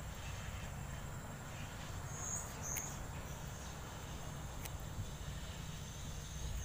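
Outdoor ambience: insects trilling steadily at a high pitch over a low steady rumble. A couple of short high chirps come about two and a half seconds in, and a few faint clicks.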